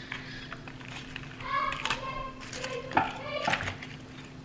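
Wooden spoon stirring cabbage and chicken in a ceramic slow-cooker crock, with one sharp knock of the spoon against the crock about three seconds in. Several short high-pitched cries sound in the background.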